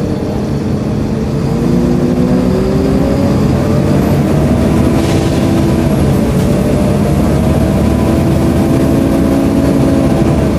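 Volvo B7LA (Wright StreetCar) bus heard from inside while under way: the engine rumbles beneath a loud, hoover-like cooling-fan whine. The whine rises in pitch over the first few seconds and then holds steady.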